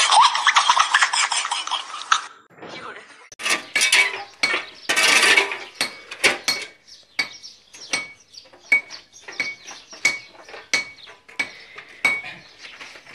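Laughter for about the first two seconds. Then a long-handled digging tool strikes and scrapes dirt ground in a steady series of short, sharp hits, about two a second, each with a faint ring.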